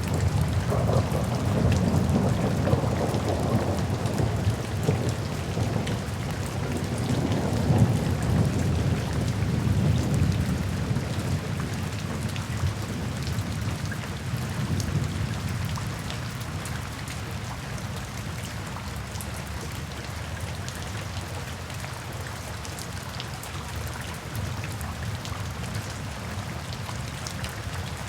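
Thunderstorm: steady rain with drips pattering throughout, and a long rolling rumble of thunder that swells at the start, surges twice, and fades away by about halfway through.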